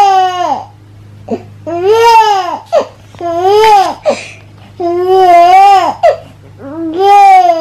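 A baby fussing and crying in a run of about five loud wails, each about a second long and rising then falling in pitch, with short breaths between.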